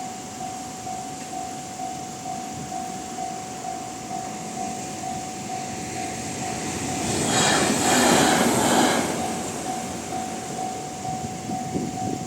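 A level-crossing alarm rings steadily in the Tohoku-style electronic tone, about two strikes a second. About seven seconds in, a JR Shikoku 8600 series electric limited express passes the crossing in a brief rush of wheel and running noise lasting about two seconds, loudest in the middle, while the alarm keeps ringing underneath.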